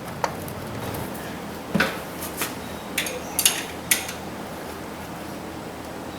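Scattered sharp metallic clinks and taps of hand tools on bolts and metal while a replacement starter is bolted up under a truck, about six of them in the first four seconds and then quieter.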